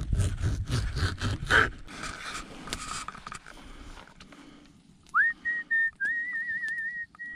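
A few knocks and rustles at first, then from about five seconds in a person whistling: a quick upward slide into a high note, held with small wavers and broken into short phrases.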